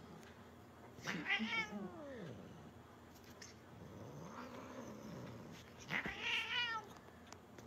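A cat meowing three times: a drawn-out meow about a second in, a faint low one in the middle, and another loud meow about six seconds in.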